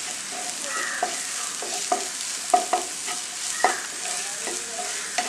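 Spatula stirring a sizzling onion, potato and tomato mixture in a nonstick frying pan: a steady sizzle with irregular sharp scrapes of the spatula against the pan. The spice powders are being fried into the mixture.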